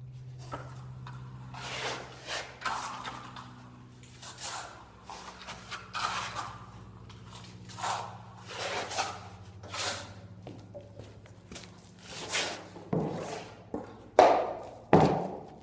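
Steel plastering trowel swishing and scraping over wet white-set finish plaster on a wall, one stroke about every second, over a steady low hum. Near the end come a couple of louder knocks.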